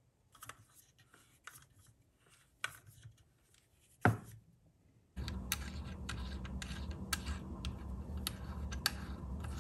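Small metal ticks and scrapes of a hex key turning a cap screw into an aluminium box's faceplate, with one sharp knock about four seconds in. From about five seconds a steady low hum sets in, under a run of light clicks as a coax plug is threaded onto the antenna socket.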